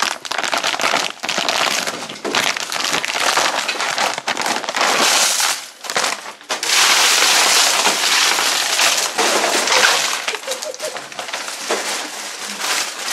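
Wrapped Tootsie Pop miniature lollipops pouring out of a plastic bag onto a heap of wrapped candy: a dense clatter of hard candies and crinkling wrappers, with a short break about six seconds in.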